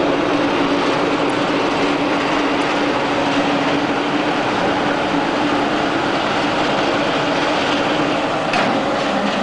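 Diesel engine of a SUNTON SE220 amphibious excavator running steadily with a constant low hum, and a brief knock near the end.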